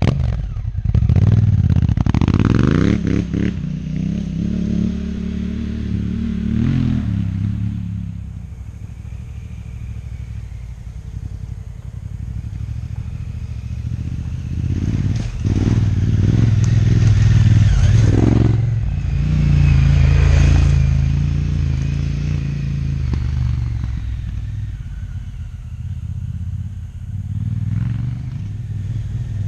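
Honda Africa Twin adventure motorcycle's twin-cylinder engine revving as it pulls away on a dirt trail, its pitch climbing through the gears. It fades, then comes back loud about halfway through and swells and drops with the throttle, with its tyres clattering over the forest floor.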